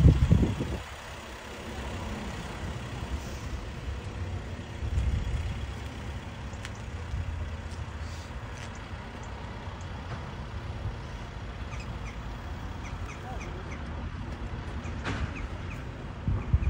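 Low, steady rumble of a vehicle engine running. There is a loud burst right at the start and a swell about five seconds in, and a series of short high chirps comes in the second half.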